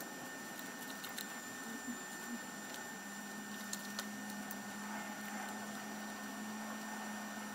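Faint, scattered ticks and rustles of cotton thread being hooked around small nails on a string-art board, over steady room hiss; a steady low hum comes in about three seconds in.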